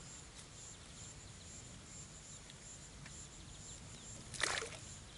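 Faint outdoor quiet by the water, with an insect chirping in a thin high note that pulses about twice a second. Near the end comes a short splash at the water's edge.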